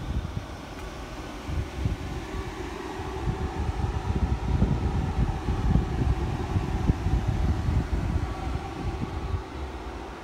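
Electric air blower of an inflatable decoration running steadily, keeping it inflated: a continuous fan hum with a low rumble that swells through the middle and eases off near the end.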